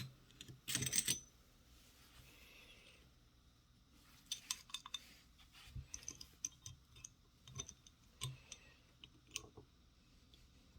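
Small metal parts of a 3/8-inch hand ratchet clicking and tapping as they are handled and worked back into its head during reassembly. There are scattered short clicks, with a brief rustle of handling about a second in.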